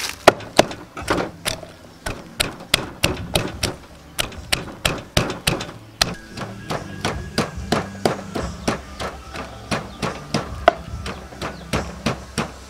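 Wooden pestle pounding garlic and chilies in a wooden mortar: a steady run of dull knocks, about two to three strokes a second.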